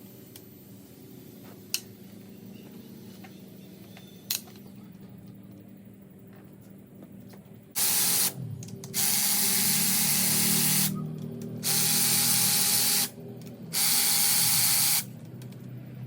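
Hand-held power tool run in four bursts of one to two seconds each, about eight seconds in, on an engine being torn down. Two sharp clicks come before it.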